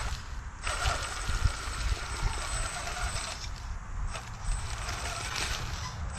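1/8-scale RC rock crawler's brushless electric motor and geared drivetrain whining under throttle, with dry leaves and twigs crackling under the tyres. The whine drops out briefly twice, about half a second in and again near four seconds.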